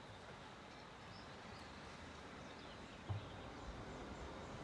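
Faint evening ambience over the water: a steady low hiss with a few faint distant chirps, and a brief low thump about three seconds in.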